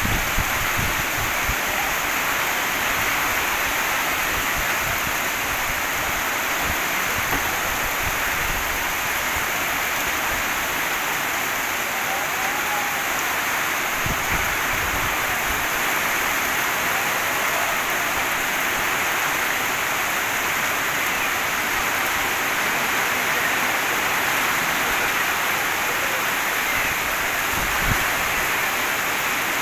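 Heavy rain pouring steadily onto a paved street and the standing water on it, an even, unbroken hiss of downpour.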